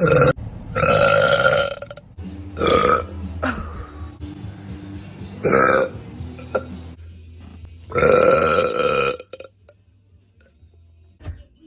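A woman burping loudly again and again: about five burps in a row, short ones and two long drawn-out ones of about a second each.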